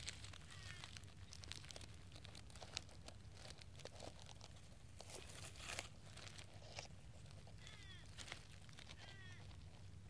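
Faint outdoor ambience: scattered light clicks and rustles close to the microphone over a low steady hum, with a few short animal calls falling in pitch, about half a second in and twice near the end.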